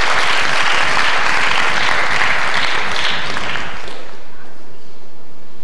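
Audience applauding, many people clapping, the applause dying away about four seconds in.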